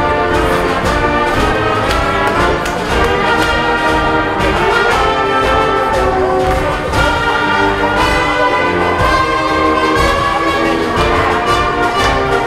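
A high school concert band plays a march-style piece: brass and woodwinds over a steady percussion beat.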